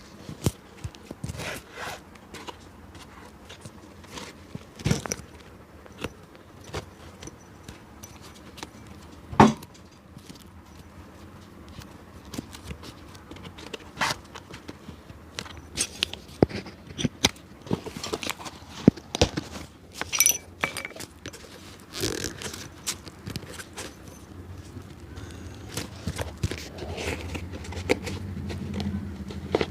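Irregular clicks, taps and scrapes from a cobbler's hand tools working on an old leather shoe, with one sharper knock about nine seconds in. A low hum rises near the end.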